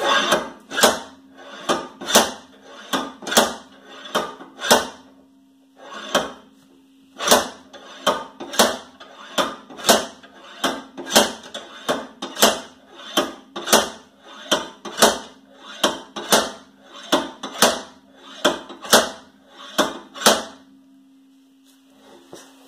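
Sledgehammer blows on a seized rear wheel hub of a 2010 Toyota Prius, about two a second, with a short pause a few seconds in; the rusted hub has not come free.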